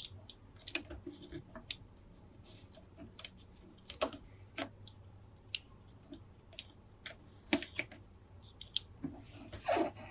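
Fingers tapping and scratching on a cardboard figure box and its clear plastic window, making irregular sharp clicks and taps. A longer rustling scrape of the box being handled comes near the end.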